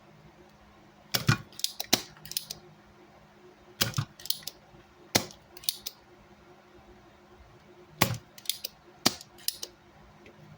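Sharp clicks and taps from small hand tools worked against the amplifier board, coming in quick clusters of a few strokes with pauses between them. A faint steady low hum lies underneath.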